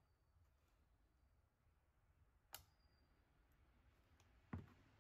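Faint handling of solid lifters in a diesel cylinder head: a sharp metal click about halfway through and a duller knock near the end, in otherwise near silence.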